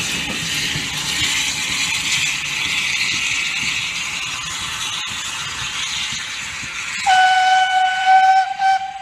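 Peckett 0-4-0 saddle tank locomotive running away with a brake van, a steady hiss of steam and running noise, then its steam whistle sounds about seven seconds in: one loud held note of about two seconds, briefly broken near the end.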